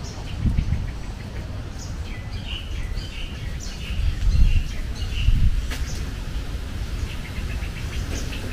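Small birds chirping and twittering in the trees, a run of short high chirps thickest in the middle, over a constant uneven low rumble.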